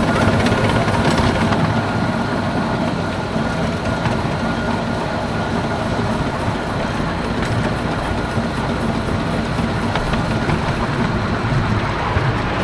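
Romulus-type miniature steam locomotive running with its passenger train, heard from on board: a steady, dense running noise of wheels on the rails along with the working engine.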